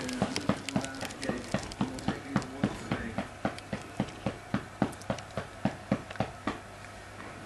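A steady run of soft, sharp thumps, about four a second, that stops near the end. Over the first three seconds a voice hums a few low notes on top of them.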